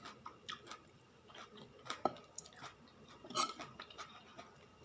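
A person chewing food close to the microphone: soft, scattered wet mouth clicks and smacks, with a couple of sharper ones about two seconds and three and a half seconds in.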